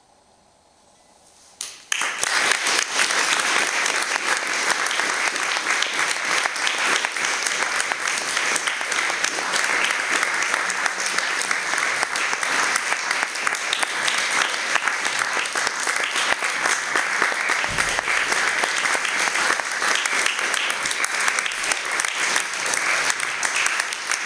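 A brief hush after the last note, then audience applause that starts suddenly about two seconds in and keeps going steadily.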